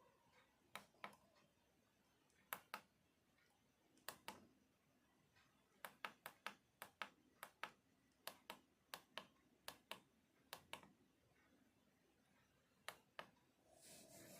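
Faint, sharp clicks, mostly in close pairs, at irregular intervals, with a quicker run of them through the middle; a brief soft rustle near the end.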